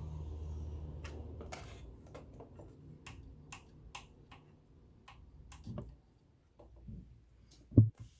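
Low hum that fades out over the first two seconds, then a string of sharp metallic ticks and clicks from an all-metal sewing machine being worked on during cleaning and oiling, with one loud knock near the end.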